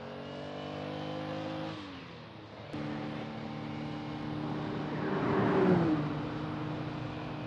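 Ferrari Testarossa engine running hard, its pitch climbing slightly and then dropping away about two seconds in. After a sudden cut a steady engine note carries on, with a rushing whoosh of a car going by about five seconds in, the loudest moment.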